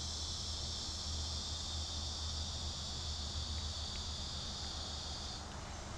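Steady high-pitched chorus of insects, part of which stops about five and a half seconds in, over a low steady hum.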